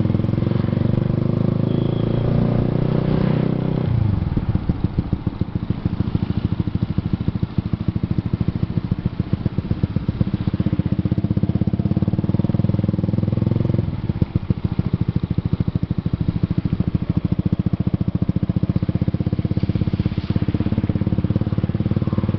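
Motorcycle engine running under way, a steady fast-pulsing note whose pitch and character shift about four seconds in and again near the middle, as the throttle or gear changes.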